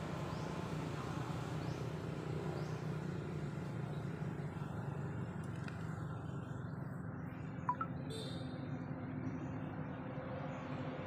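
Steady low outdoor background rumble, with one short sharp click about two-thirds of the way through.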